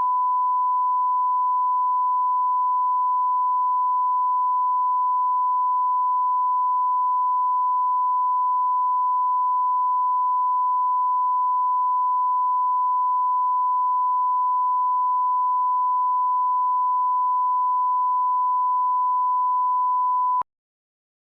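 Steady 1 kHz line-up reference tone of a broadcast bars-and-tone leader, one unwavering pitch, used to set audio levels. It cuts off suddenly near the end.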